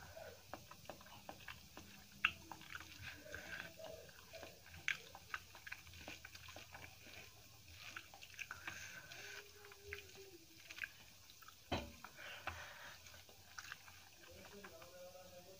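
Close-up eating sounds of a mouthful of rice with curry and crushed papadam: wet chewing and lip-smacking, with many small crisp clicks and crackles scattered throughout. Soft squelching comes from fingers mixing the food on a steel plate.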